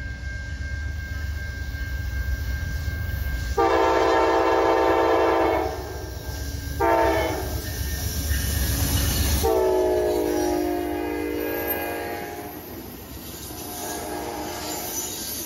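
Amtrak GE Genesis diesel locomotive approaching and passing at speed, blowing its horn: a long blast, a short one, then another long one that drops in pitch as the locomotive goes by. Its diesel rumble falls away as it passes and the passenger cars roll by with wheel clatter.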